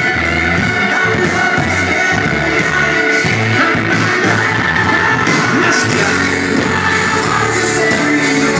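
Live band playing loudly, with a singer on microphone over electric guitars, bass and drums, recorded from within the audience.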